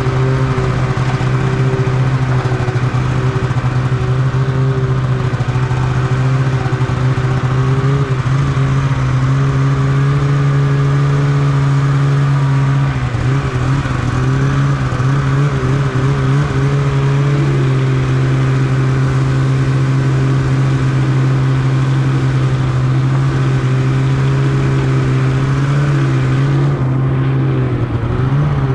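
Polaris Khaos 850 snowmobile's two-stroke twin engine running at a steady, even speed while the sled rides, its pitch wavering briefly about halfway through and again near the end.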